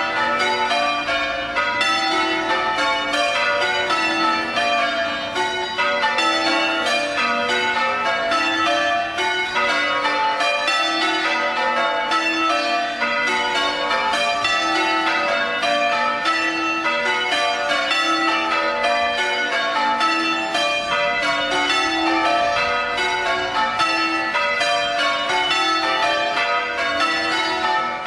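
Church bells in full-circle change ringing during a quarter peal: an unbroken, even stream of strikes with the bells sounding one after another.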